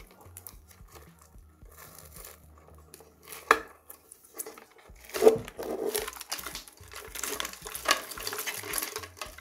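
Wires and small plastic connectors rustling and clattering as they are handled and pulled out of an electric scooter's deck, with a sharp knock about three and a half seconds in, a louder one at about five seconds, and a run of busy clattering after it.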